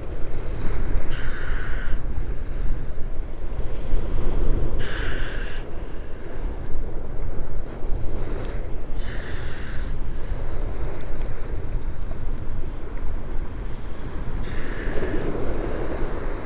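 Wind and sea surf, a steady rushing noise, with wind buffeting the microphone. Four short, higher-pitched sounds stand out about every four seconds.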